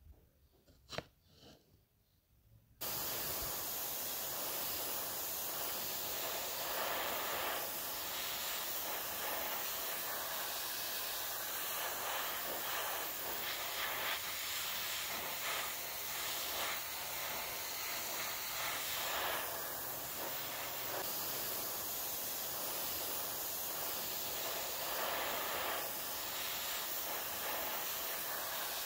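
Spray paint hissing steadily as plastic model car parts are sprayed, starting suddenly about three seconds in and swelling and easing in passes. Before it, a couple of faint taps from the parts being handled.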